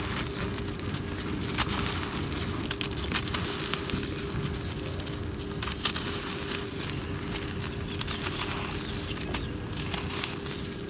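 Dry, gritty cement clods crumbled between the fingers: a continuous gritty rasp of powder and grit spilling down, dotted with many small sharp crackles as the lumps break apart.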